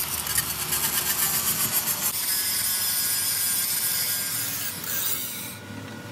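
Electric angle grinder with an abrasive disc grinding down the rough edges of a cast-metal truck trunnion saddle seat casting: a steady gritty hiss over the motor's hum. The grinding stops about five and a half seconds in.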